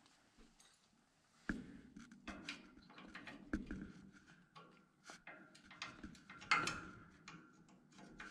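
Irregular clicks, taps and scraping of a small metal hand tool working against a hay baler's steel frame, starting about a second and a half in, with one louder knock past the middle.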